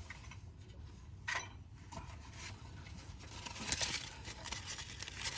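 Sandpaper rubbing back and forth on the end of a starter motor's power cable to the solenoid, taking the grit and corrosion off so it makes a good electrical contact. Faint, with quicker strokes in the second half.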